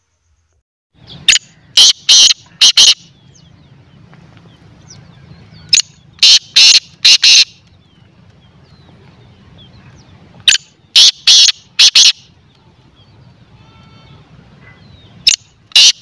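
Francolin (teetar) calling from a cage: loud, harsh phrases of four or five quick notes, repeated about every four and a half seconds.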